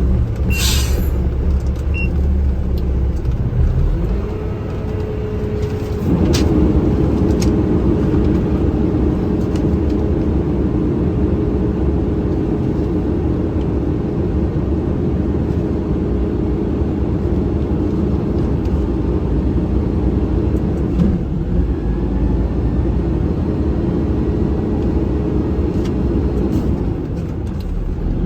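Vehicle driving, with steady engine and road rumble heard from inside the cab. An engine drone comes in about four seconds in and changes pitch and grows louder about two seconds later.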